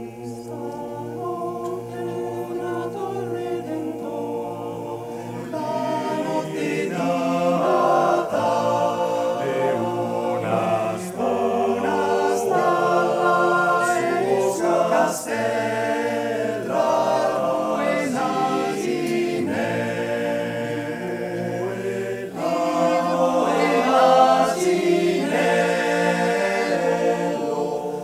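Male voice choir singing a Christmas song a cappella in several-part harmony. The singing comes in suddenly at the start and grows louder after a few seconds.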